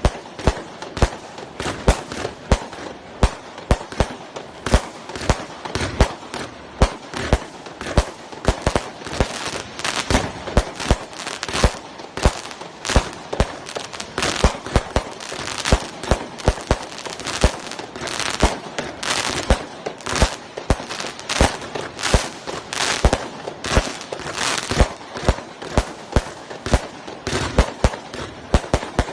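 A 200-shot 20 mm compound firework cake firing continuously, several sharp shots a second with no break.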